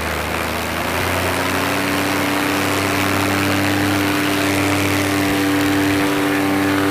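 Paramotor's two-stroke engine and propeller at full takeoff throttle. The pitch climbs over the first second and then holds steady, with wind rushing over the microphone.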